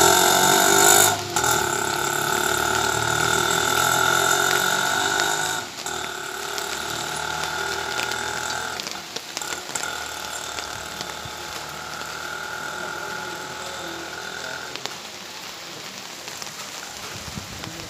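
Steady mechanical droning made of several held tones, loudest for the first six seconds and stopping about fifteen seconds in, over the steady hiss of falling rain.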